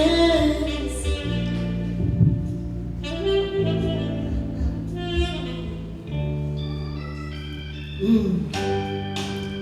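Live band playing a slow soul ballad between sung lines: held chords over a bass line that changes every second or two.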